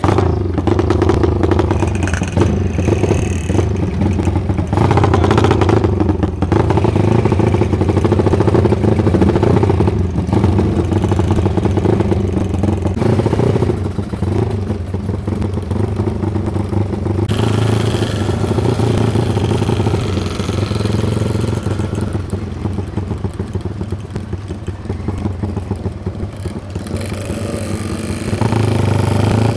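Motorcycle engine running steadily at road speed, with wind rush on the microphone and the other bikes of the group around it.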